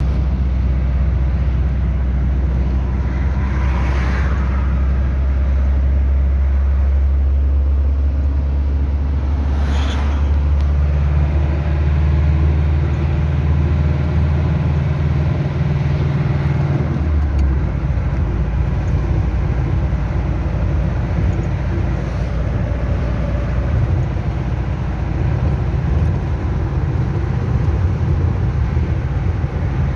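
Chevrolet D-10 pickup's turbo diesel engine running, with a strange noise that the owner wants to show. A steady low drone turns rougher a little over halfway through.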